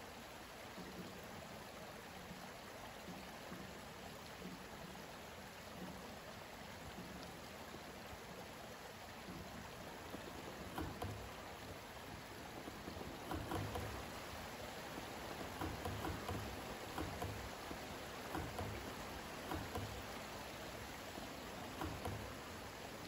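Steady rushing noise like running water, with irregular low thumps from about ten seconds in.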